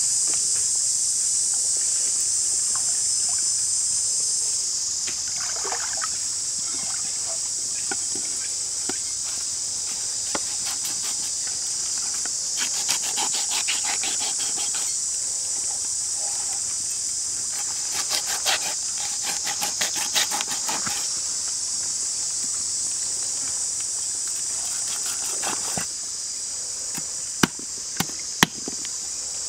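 Steady high-pitched insect chorus, with a knife working a whole fish on a wooden board: two spells of quick rasping strokes around the middle and two sharp knife chops near the end.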